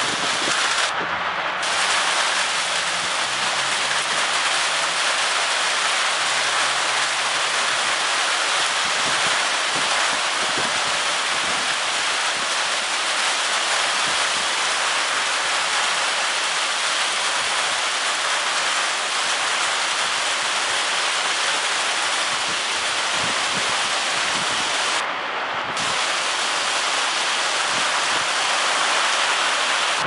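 Heavy storm rain in high winds: a loud, steady hiss that goes on without a break. It dulls briefly twice, about a second in and near the end.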